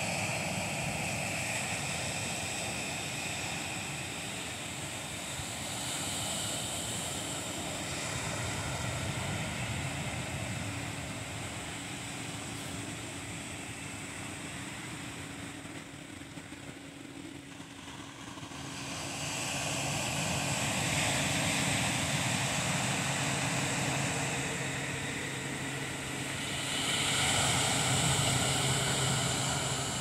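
Ocean surf breaking on a sandy beach, a steady wash of noise that swells with each wave and ebbs between them, loudest near the end. A faint steady low drone runs beneath it.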